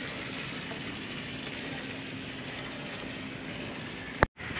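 Steady outdoor background noise, an even hiss with a faint low hum under it, ending in a sharp click and a brief dropout to silence near the end.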